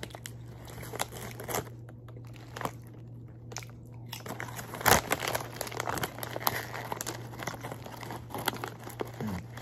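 Crinkling of a chip bag as a hand rummages inside it, mixed with crunching as the chips are bitten and chewed, in scattered sharp crackles that are loudest about five seconds in.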